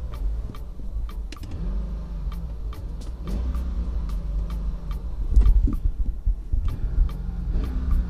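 Mercedes W220 S-class V8 engine running, blipped about four times in quick revs that rise and fall back, the loudest about two thirds of the way in: the new throttle pedal answering sharply. A fast ticking, about three a second, runs under the engine.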